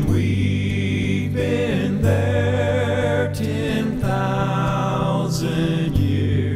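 Slow background song: a singing voice over sustained chords, with the bass note changing about every two seconds.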